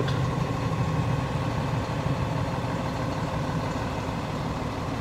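Cummins L9 inline-six diesel of a Freightliner M2 truck idling steadily.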